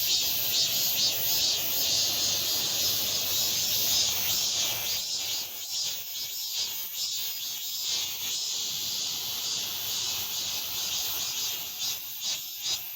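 A chorus of male cicadas singing: a steady, dense, high-pitched buzzing racket.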